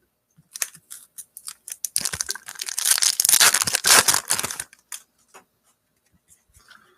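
Foil trading-card pack being torn open and its wrapper crinkled, with a dense stretch of tearing and crackling in the middle and a few scattered rustles around it.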